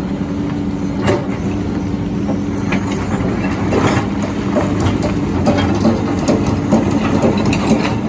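Hydraulic excavator (backhoe) running with a steady engine drone, with scattered knocks and clanks throughout.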